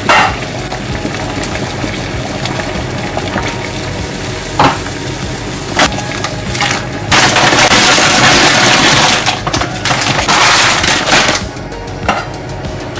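Background music with cooking sounds from a pan: a few sharp knocks of a utensil, then about four seconds of loud sizzling and stirring in the middle before it drops back.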